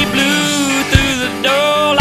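Country music with a steady beat, a low drum thump about once a second.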